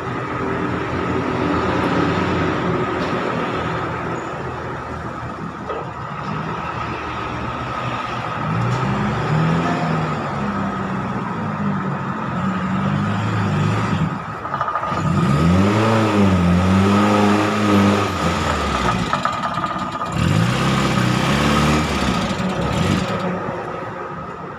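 Motor engines revving up and down several times, with a steady high whine underneath.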